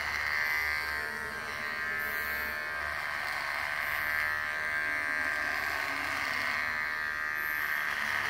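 Electric hair clippers buzzing steadily as they are run through a long, thick beard, shearing it off.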